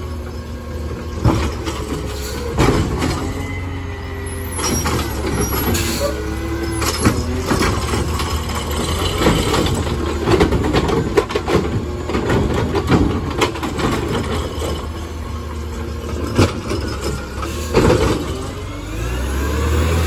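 A natural-gas Autocar automated side-loader garbage truck with a McNeilus ZR body, its engine running steadily while the hydraulic arm lifts a cart, tips it into the hopper and sets it back down, with several clanks and bangs along the way. Near the end the engine note rises as the truck pulls forward.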